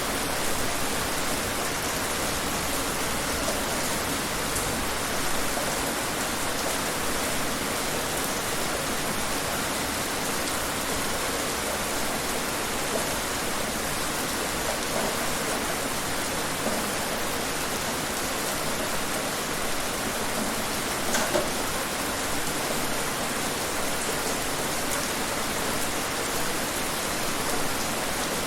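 Steady rain falling and pattering on surfaces, with occasional louder single drops.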